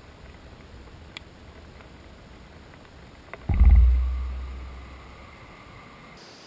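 Close thunderclap: a sharp crack about three and a half seconds in, then a loud, deep rumble that dies away over about two seconds.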